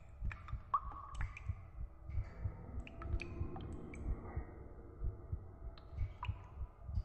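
Rapid low thumping, about two to three beats a second, with sharp clicks and brief squeaks scattered over it and a faint drawn-out creaky tone in the middle.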